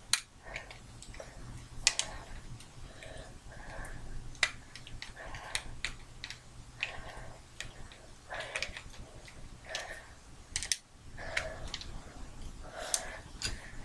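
Small screwdriver turning a screw in a plastic toy electronic drumstick: irregular light clicks and scrapes of metal on plastic, with handling of the stick.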